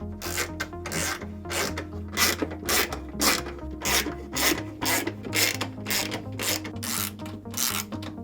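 3/8 inch socket ratchet wrench tightening nuts onto the mounting bolts: short rasping ratchet strokes, about two a second, over steady background music.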